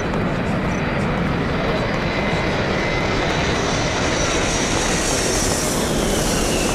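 A steady engine roar with a faint high whine that grows stronger in the second half and drops slightly in pitch near the end.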